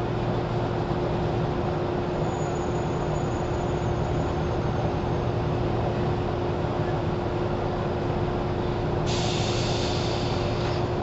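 Inside the motor car of a JR 413 series electric train under way: a steady rumble of wheels and running gear with a constant hum. The pitch does not change, so the train is holding an even speed. A short hiss starts suddenly about nine seconds in and stops two seconds later.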